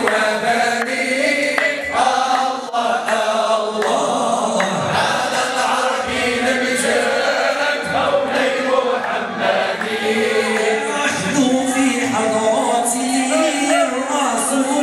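Men's chorus chanting devotional praise of the Prophet a cappella, following a lead voice sung into a microphone, with occasional hand claps.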